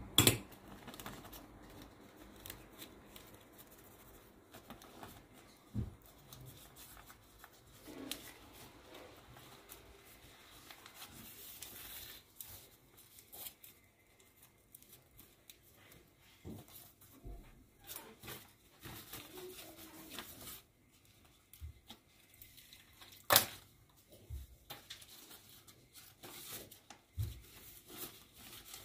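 Ebieba leaves crinkling and rustling as they are folded by hand around cooked rice, with scattered short clicks and a few sharp knocks, the loudest just after the start and again about three-quarters of the way through.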